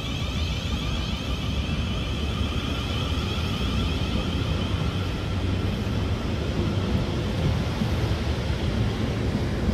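South Western Railway Class 450 Desiro electric multiple unit running past: a steady rumble of wheels on rail with a high electric whine that fades about halfway through.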